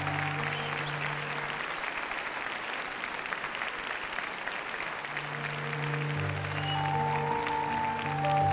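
A crowd applauding in a large hall as one piece of music dies away. A new piece with slow held notes comes in about five seconds in.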